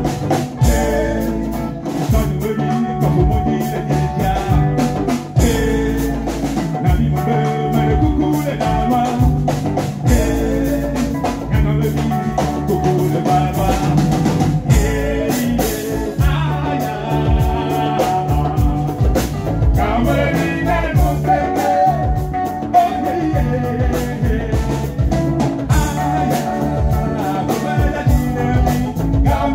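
Live band playing: drums and guitar with a singing voice.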